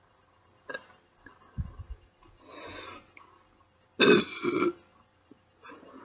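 A woman burping on command: one long, loud burp about four seconds in, with shorter throat sounds and breaths before it and a smaller one near the end.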